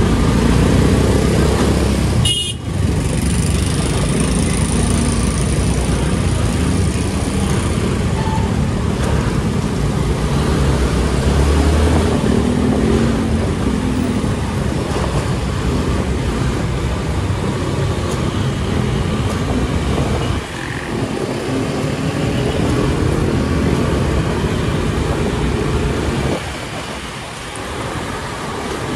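Steady engine and road noise from riding through city traffic.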